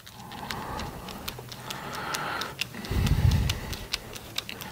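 Quick, irregular small metal clicks, about three or four a second, from handling a small wheel-and-bearing assembly and working its lock nut with a bit screwdriver, with a brief low handling thump about three seconds in.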